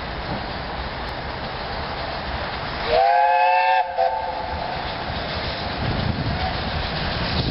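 Steam whistle of BR Britannia Class 4-6-2 no. 70013 Oliver Cromwell: about three seconds in, one blast of just under a second, several notes sounding together that slide up as it opens, followed at once by a short second toot. Under it the steady rumble of the approaching locomotive grows louder near the end.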